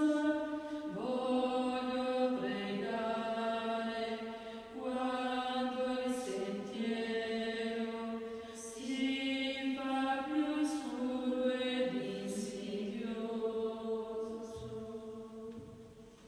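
Slow sung chant: long held vocal notes that step to a new pitch every second or few, fading out near the end.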